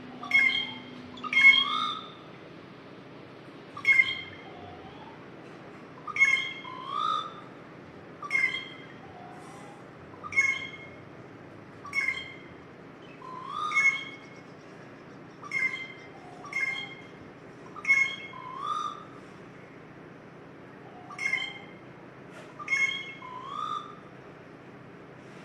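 A bird calling over and over: a short call about every one and a half to two seconds, sometimes doubled, each with a rising sweep in its lower part.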